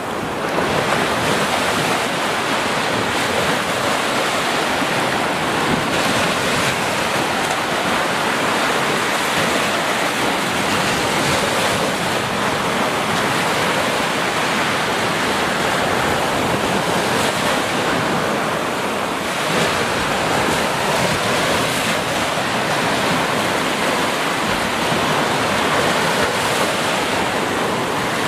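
Sea surf: small waves breaking and washing up onto a beach, a steady hiss with no pauses.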